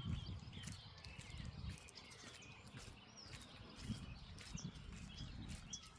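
Morning birdsong: small birds chirping in many short, overlapping calls over a low, uneven rumble.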